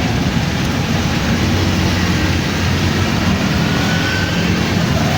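Steady street traffic noise: a constant low rumble of vehicles with an even hiss above it.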